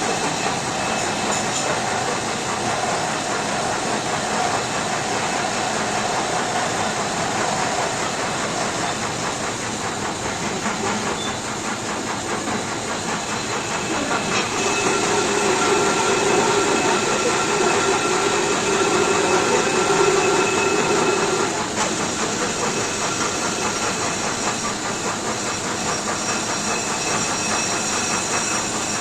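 Brake lathe machining a car's disc brake rotor: a steady metallic hiss with a faint whine as the cutting tool skims the turning disc face. About halfway through it gets louder for some seven seconds, with a higher whine, then settles back.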